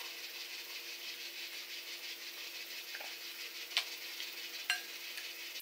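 A few light clicks of a spoon against a bowl as mashed baby food is scooped, three short ticks in the latter half, over a steady faint hiss and low hum of room noise.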